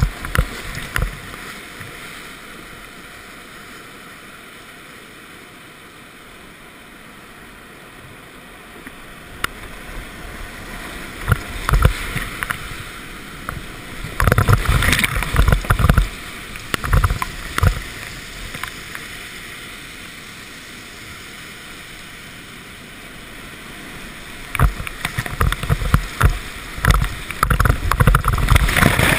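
Rushing whitewater of a river rapid heard from a kayak in the flow, a steady roar with louder surges of splashing water about 12 seconds in, around 14 to 16 seconds, and through the last five seconds as the boat drops into the foam.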